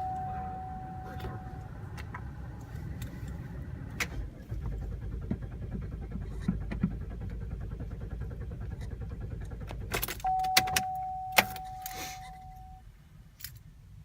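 GMC Acadia's starter cranking the engine for about six seconds, starting about four seconds in, without the engine catching: it turns over but won't start. A steady electronic chime sounds before the cranking and again near the end, with key and ignition clicks.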